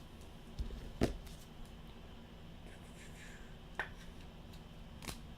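Trading cards being handled on a table: a few light clicks and taps, the loudest about a second in, with two more later.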